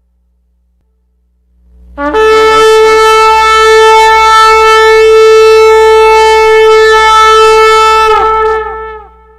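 One long, steady blast on a horn, a shofar or trumpet-like call, starting about two seconds in. It is held on a single pitch for about six seconds, then breaks off with a short echoing tail near the end.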